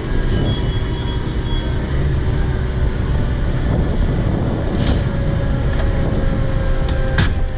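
Fire truck's diesel engine running with a steady, heavy low rumble, with a few sharp knocks about five and seven seconds in.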